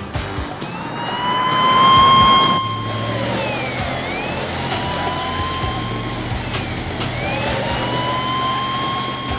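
Police siren in a slow wail: it climbs and holds high, dips and climbs again twice. Under it is the engine and tyre noise of a car driven fast.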